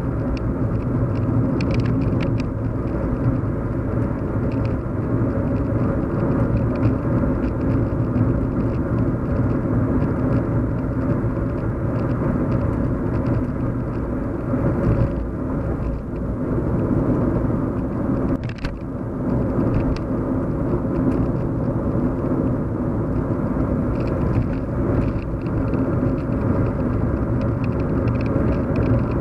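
Steady low hum and rumble of a car on the move, heard from inside the cabin: road and engine noise with no sudden events. It briefly dips about 18 seconds in.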